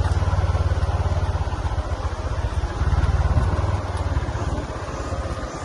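Vehicle engine running with a fast, even low throb, easing off slightly near the end.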